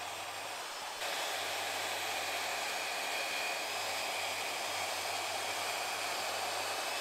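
Steady whirring noise of a workshop power tool running, growing louder about a second in.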